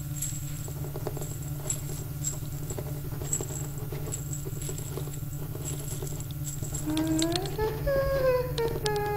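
Ambient film soundtrack: a steady low drone with faint scattered clicks and crackles, joined about seven seconds in by a pitched tone that slides up and then down in wavering steps.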